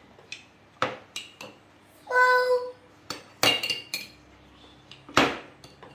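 Metal spoons clinking and tapping against ceramic mixing bowls and a glass sugar jar while pancake batter is stirred, a string of separate clinks. A short child's hum-like voice sounds about two seconds in.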